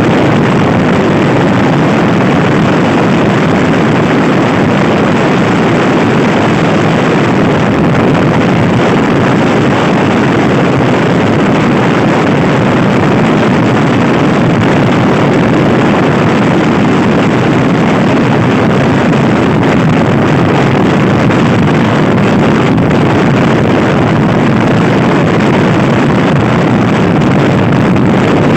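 Heavy wind rushing over the microphone of a stock Honda Scoopy i scooter being ridden hard, with the scooter's engine running underneath; the noise is loud and steady.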